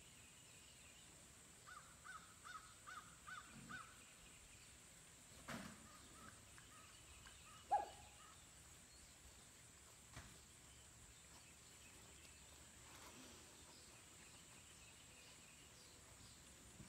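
Near silence broken by a quick run of about six short calls near the start, and about eight seconds in a single short, sharp yip from a Pyredoodle puppy at play, falling in pitch and the loudest sound.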